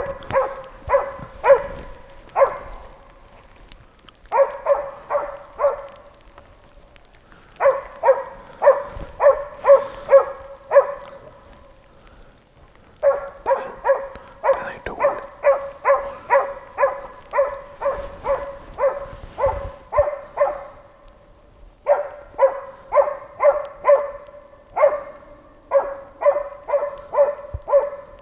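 An East Siberian laika barking in steady bouts of quick, evenly pitched barks, about two to three a second, broken by short pauses. This is bay barking at a wounded wild boar she has tracked down.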